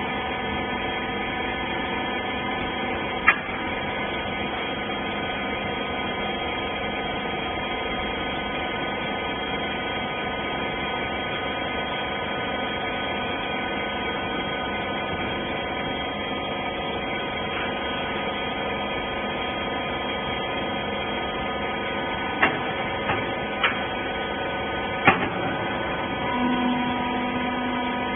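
Hydraulic wiper-rag baler running, its pump motor giving a steady hum made of several stacked tones. A few sharp clicks cut in, one early and four close together near the end, and a lower steady tone swells in shortly before the end.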